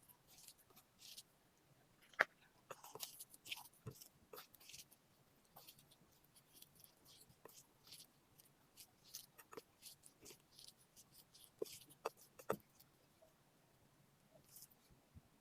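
Faint eating sounds: scattered soft mouth clicks and smacks of chewing, with a few sharper clicks, the loudest about two seconds in and a couple around twelve seconds in.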